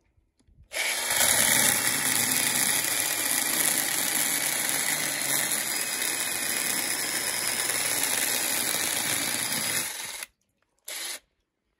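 Cordless drill driving a 4-inch mini chainsaw attachment, its chain sawing through a small log: a loud, steady running sound that starts about a second in and stops after about nine seconds, then one brief second burst near the end.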